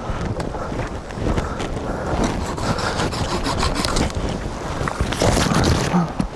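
Irregular rustling and crunching, with many small crackles, from moving through deep snow and handling pine boughs; loudest about five seconds in.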